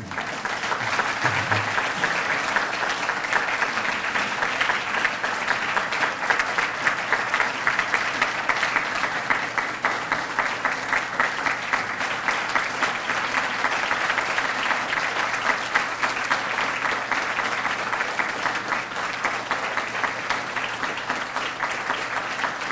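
Audience applauding: many hands clapping at once, breaking out suddenly and going on steadily.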